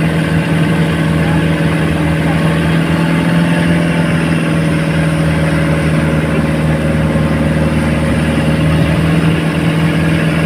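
Boat engine running steadily at a constant speed, a loud, even drone with a low hum that holds its pitch.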